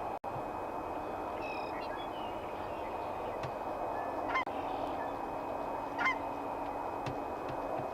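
Geese honking: a few scattered short honks, the two loudest about four and six seconds in, over steady background noise.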